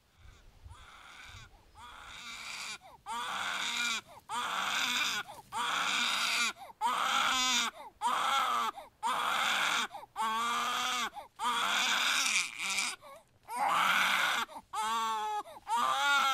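A baby crying in a string of wails, about one a second, each rising and falling in pitch, faint at first and loud from about three seconds in.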